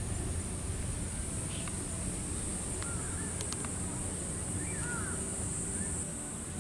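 Cicadas droning steadily in a high pitch, with a few short bird chirps near the middle and a low background rumble.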